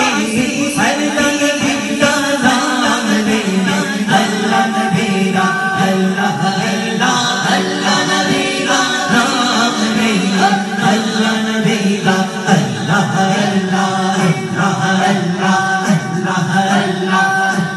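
A man singing a Punjabi naat into a microphone, with other men chanting along in unison.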